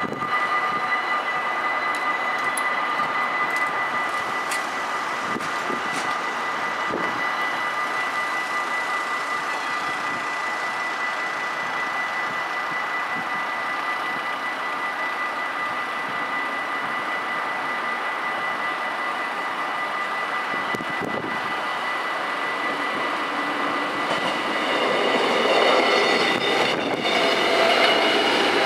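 Level-crossing warning bells ringing steadily, stopping about two-thirds of the way through. Then a Stadler GTW diesel multiple unit approaches, growing louder near the end.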